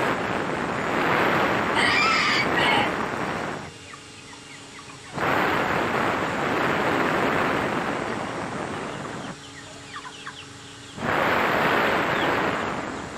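Young Brahma chickens calling, with a louder call about two seconds in and faint thin peeps around ten seconds. Over them, a loud rushing noise comes and goes in three long stretches that start and stop abruptly.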